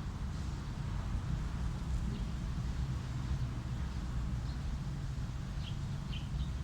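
Steady low outdoor background rumble, with a few faint, short, high chirps toward the end.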